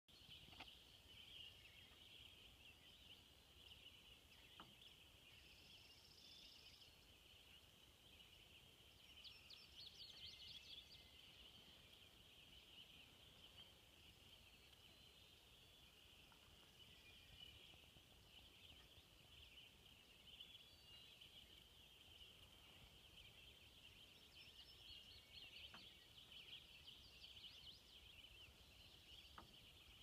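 Faint, steady chorus of many high-pitched calls, with a few clearer bird calls standing out about ten seconds in and again near the end.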